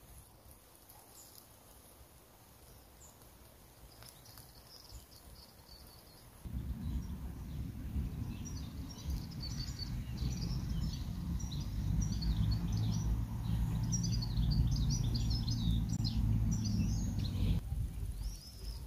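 Small songbirds chirping and singing in quick high notes, faint at first and busiest in the second half. About a third of the way in a low, steady rumble comes in under them and cuts off suddenly near the end.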